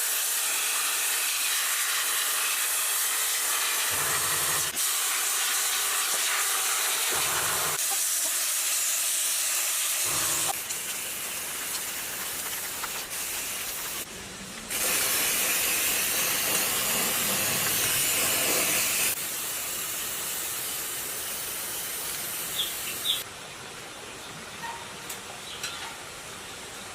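A high-pressure cleaning jet hissing as it sprays down the rusted, water-damaged tiller parts. It comes in long bursts of several seconds with short breaks between them, and is quieter near the end.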